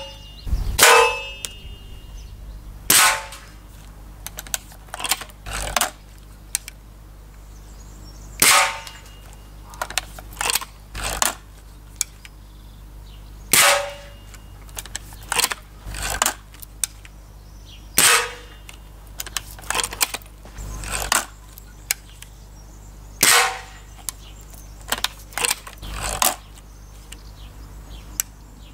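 Slavia 630 break-barrel spring-piston air rifle (.177) firing a series of sharp shots about five seconds apart. Between the shots come the smaller clicks and clacks of the barrel being broken open to cock it and snapped shut after loading. Some shots are followed by a short metallic ring as a pellet strikes a thin-walled metal beer keg.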